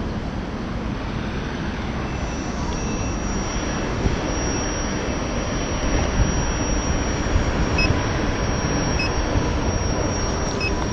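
Wind rushing over the microphone and tyre rumble from a Gotway MCM4 electric unicycle riding along the road, steady throughout, with a faint high whine. Three short high beeps come in the last few seconds.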